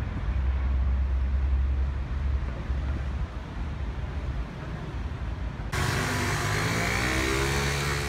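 Wind rumbling on the phone's microphone. About six seconds in the sound changes suddenly to street traffic, with a vehicle engine rising in pitch as it speeds up.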